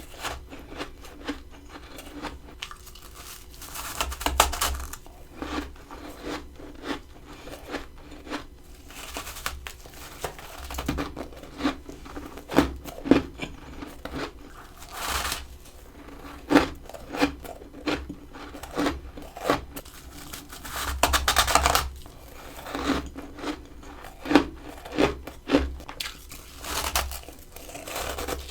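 Close-up biting and crunching of powdery freezer frost: repeated crackling bites, with louder crunching clusters every few seconds.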